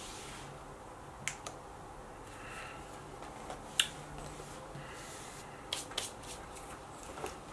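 A brief soft brush stroke over skin at the start, then a handful of sharp clicks and taps of makeup items (compacts, brush, cases) being handled and set down on a table, the loudest about halfway through.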